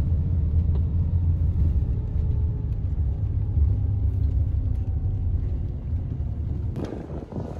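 Steady low rumble of a moving vehicle, heard from inside, with faint steady tones above it. About a second before the end a louder, hissier sound cuts in.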